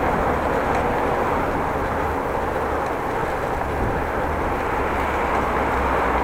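Steady rush of wind and road noise from a bicycle ride, with a low rumble and a faint click or two.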